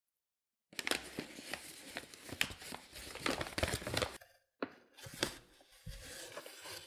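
A paper flour bag being handled, crinkling and rustling. Near the end, a scoop digs into the flour.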